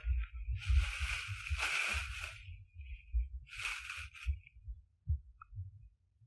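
Two stretches of rustling noise, one about two seconds long and a shorter one a second later, over low, irregular thumping.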